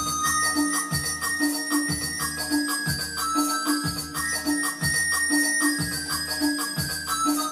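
Electronic arranger keyboard playing a Moroccan chaabi tune: a right-hand melody of held, bell-like notes over a steady programmed drum and bass beat.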